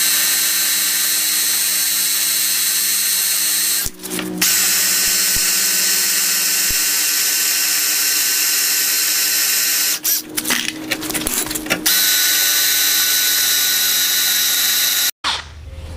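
Cordless drill boring into a steel rivet on a truck frame's spring hanger bracket, the motor running with a steady high whine. It drops out briefly about four seconds in, stutters on and off around ten to twelve seconds in, and cuts off suddenly near the end. The drilling is sped up, which raises its pitch.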